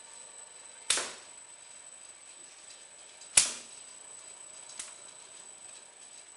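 Mouse-trap glue board making machine cycling: two loud sharp clacks about two and a half seconds apart and a fainter one a little later, each with a brief ringing tail, over a faint steady high-pitched whine.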